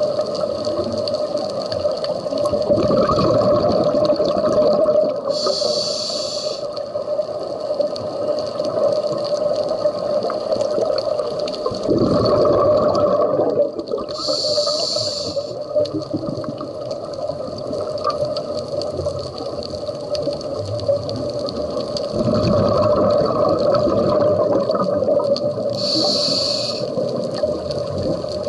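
Scuba diver breathing through a regulator underwater: a short hiss three times, about every nine seconds, with longer bubbling rumbles of exhaled air between them.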